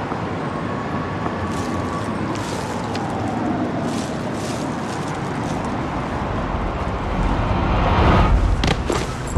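Steady road traffic noise, swelling louder about seven seconds in.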